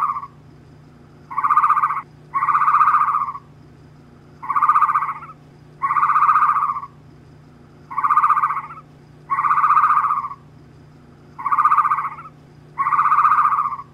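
Call played as the ostrich's sound: a two-part hooting call, a short note followed by a longer one, repeated four times about every three and a half seconds over a steady low hum.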